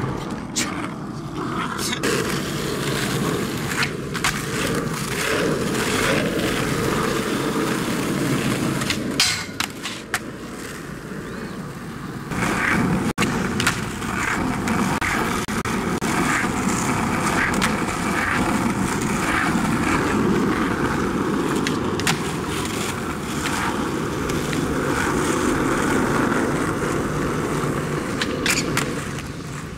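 Skateboard wheels rolling over rough asphalt, a steady gritty rumble broken by a few sharp clacks of the board.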